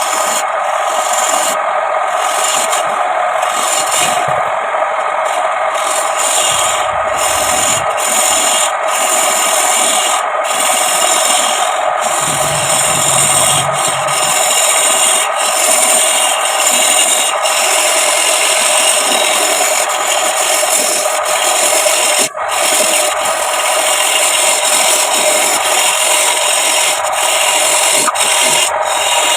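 Steady, continuous scraping of wood being worked on a homemade wood lathe, as a tool or abrasive rubs against the spinning wooden plate.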